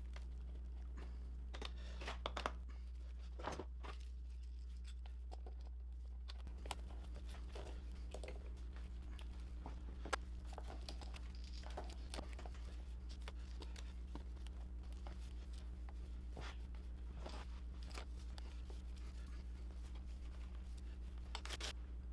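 Stretch-wrapped, glue-wet wood laminations being bent over a stem form and clamped down with bar clamps: crinkling plastic and scattered clicks and knocks of the clamps being set and tightened. A steady low hum runs underneath.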